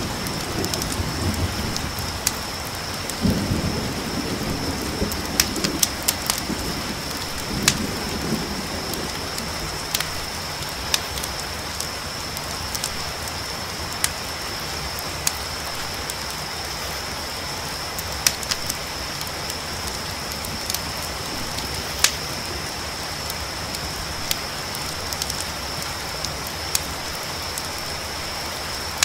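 Steady rain with a low rumble of thunder through the first several seconds, loudest about three seconds in. Under it, crickets keep up a steady high trill, and a campfire crackles in scattered sharp pops.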